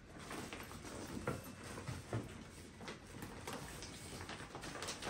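Faint rustling and crinkling of gift wrap and plastic packaging being handled, with a few soft scattered taps.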